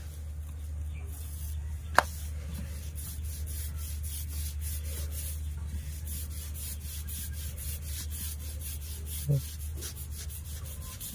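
Wooden rolling pin rolling soft rice-flour dough on a marble rolling board, repeated light rubbing strokes back and forth, with one sharp click about two seconds in.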